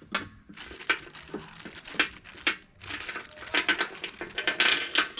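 Handling of loose metal hardware: a series of sharp clinks and knocks with rustling between them, as bolts for the mower deck spindle are picked out.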